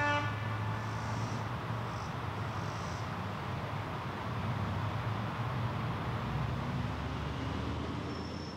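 Steady hum of road traffic from a busy road, with a low rumble under it and a few faint high chirps in the first three seconds.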